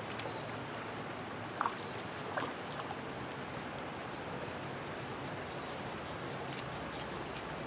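Steady rush of flowing creek water, with two short high chirps about one and a half and two and a half seconds in.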